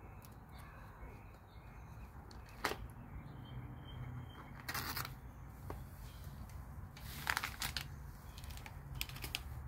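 Handling noise from a phone being held while filming: scattered light clicks and scuffs, a few louder ones, over a steady low rumble.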